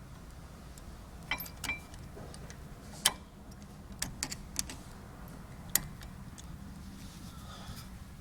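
Scattered small metallic clicks and taps as the pad retaining pin is worked through the retaining spring and brake pads of a Lotus Elise rear caliper, the sharpest about three seconds in, over a steady low hum.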